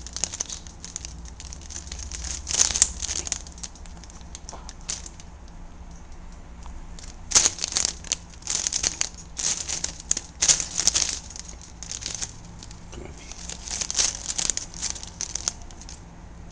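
Thin plastic bag crinkling and rustling in irregular bursts as a quaker parrot goes at it, busiest in the middle and again near the end.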